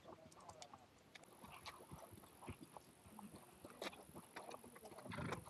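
Faint, scattered crackling clicks of grasshoppers snapping their wings in flight, with a thin high hiss joining about a second in and a brief rush of noise near the end.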